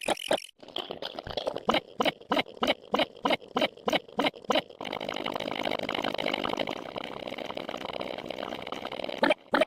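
A steady ticking beat of sharp clicks, about three a second, over a background sound effect that changes twice, the second time becoming louder and fuller about five seconds in.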